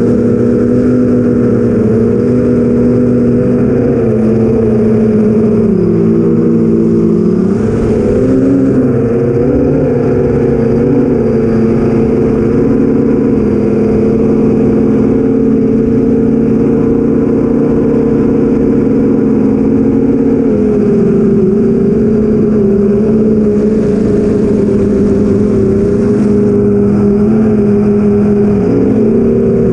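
Eight-inch FPV quadcopter's four brushless motors (BrotherHobby Avenger 2812, 1115 kV) spinning 8-inch props, a loud steady drone heard from the onboard camera. The pitch dips and rises with throttle changes a few times.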